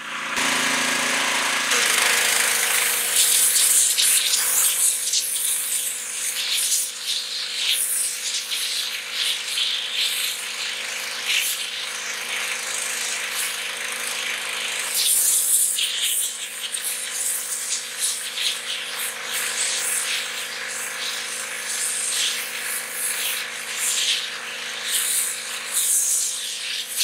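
Pressure washer jet blasting against a pumpkin: a steady, loud hiss of spraying water over the machine's constant hum. The spray cuts in again just after a brief pause at the start.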